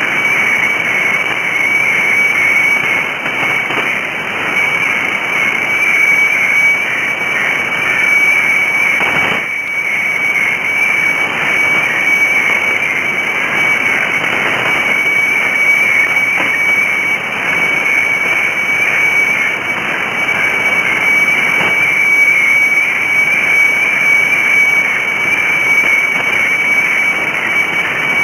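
Shortwave weather-fax (radiofax) signal from Bangkok station HSW64 on 7395 kHz, heard through a receiver: a strong, steady high tone with scratchy chatter beneath it, under hiss and static. This is a fax chart being transmitted. The signal briefly dips about nine seconds in.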